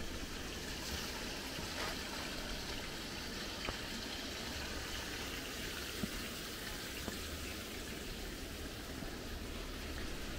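Steady running water, with a few faint clicks.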